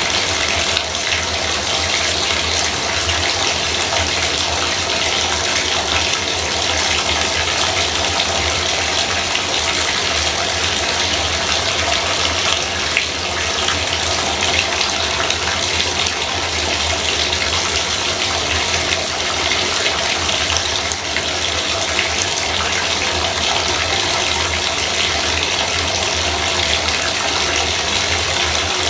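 Bathtub faucet running, a steady gush of water from the spout, unchanging in level.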